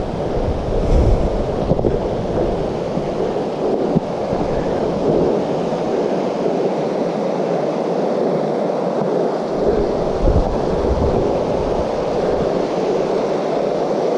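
Steady rush of a mountain creek, with wind buffeting the microphone in low rumbling gusts near the start and about ten seconds in.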